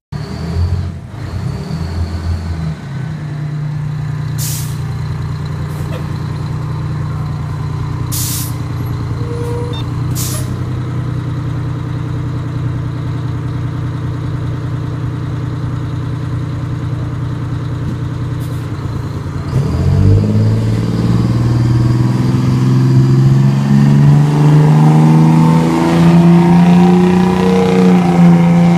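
A fire truck's diesel engine idling, with a few short, sharp air-brake hisses in the first half. A little over two-thirds in, the engine revs up and climbs steadily in pitch and loudness as the truck pulls away.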